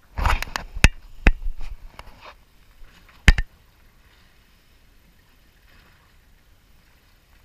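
A quick run of sharp knocks and clatters in the first two seconds, then one more loud knock about three seconds in. This is handling noise as a calico bass is swung aboard on a fishing rod and taken in hand to be unhooked.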